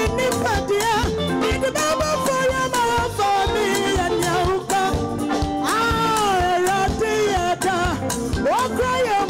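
Live gospel music: a woman singing into a microphone over a band of keyboards, bass guitar and drums with a steady beat. About six seconds in she swoops up into a long held note.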